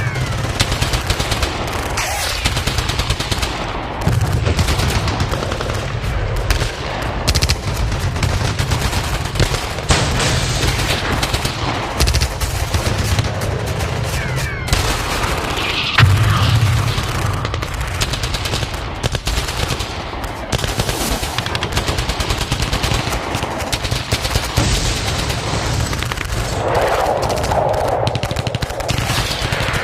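War sound effect of continuous gunfire: rapid machine-gun shots and volleys with no pause, changing character every few seconds.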